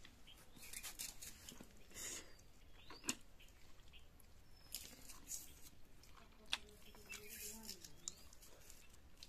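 Faint sounds of a person eating rice and boiled egg by hand: chewing and lip smacks, with scattered soft clicks.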